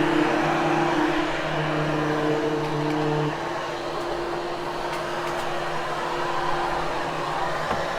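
Hoover Hushtone vacuum cleaner running steadily over carpet: a motor drone with a steady hum. About three seconds in, part of the hum drops out and the sound gets slightly quieter.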